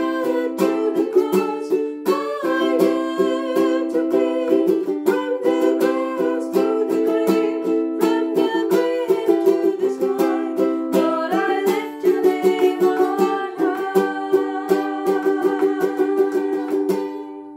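Two women singing a hymn to a strummed ukulele. Near the end the song closes on a held chord and sung note that fade out.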